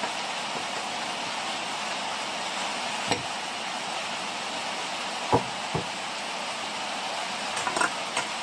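Steady rain hiss, with a few sharp knocks of a cleaver blade against a plate and a wooden table as tomatoes are cut. One knock comes about three seconds in, two more a little after five seconds, and a quick cluster near the end.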